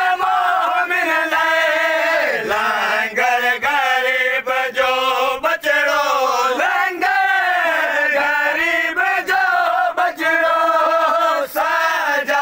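A group of men chanting a noha, a Shia lament for Hussain, together in unison: a long, drawn-out melodic line with sliding pitch, broken every few seconds by short breath pauses.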